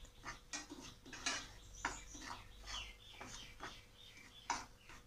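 A slotted metal spatula scraping and pushing dry semolina around a nonstick frying pan as it roasts, in quick, irregular strokes.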